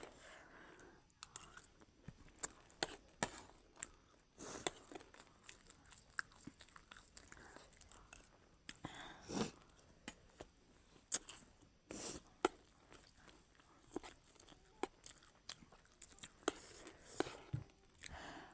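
Faint crunchy chewing of chatpat, a spicy puffed-rice snack, with many short, sharp crunches scattered irregularly.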